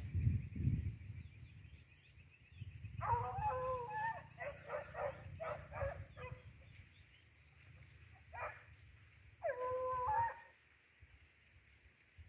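Hunting dog baying in drawn-out howls: a run of calls about three seconds in, then two more, one of them held. The dog is baying on a paca's trail.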